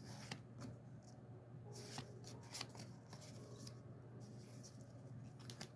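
Pokémon trading cards and their pack being handled: faint, scattered rustles and light flicks of card and wrapper.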